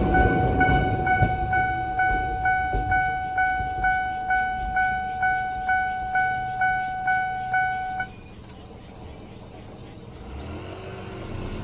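An old Japanese level-crossing warning alarm, the high-pitched standard tone, ringing about twice a second and then cutting off suddenly about eight seconds in: the train has cleared the crossing. A low train rumble fades at the start, and near the end a vehicle engine rises as traffic moves off.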